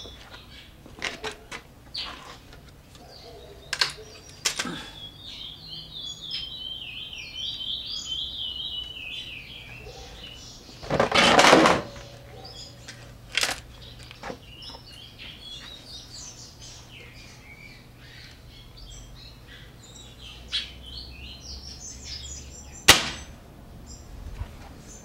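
A single shot from a Norica Storm spring-piston air rifle, fitted with a lightened piston and an enlarged, funnel-shaped air port, about eleven seconds in; it is the loudest sound. Birds chirp in the background, and there are scattered light clicks, with one sharp click near the end.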